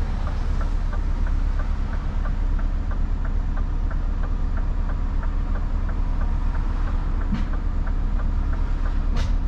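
Scania R580's V8 diesel engine idling steadily, heard from inside the cab, with a light regular ticking over it.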